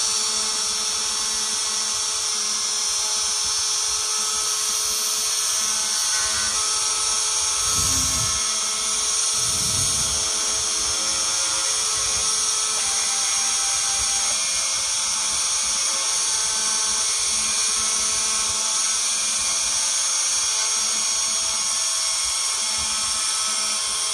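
Small high-speed spindle motor of a mini CNC machine running steadily while drilling a PCB, a high whine with several fixed tones. Twice, about a third of the way in, a brief lower rumble breaks in.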